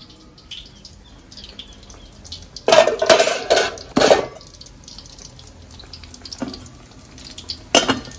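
Kitchen water splashing in a few short bursts about three seconds in, like a tap running into a sink or pot, with light clatter and two sharp clinks of pots or utensils later on.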